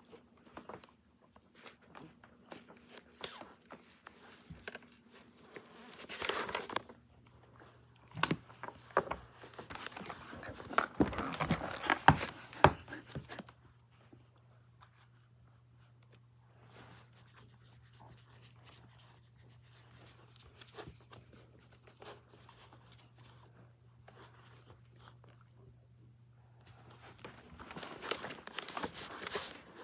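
Puppy rolling and squirming on a wooden floor: scattered scuffs, clicks and rustling, with louder bursts about six seconds in, around eleven to thirteen seconds, and near the end.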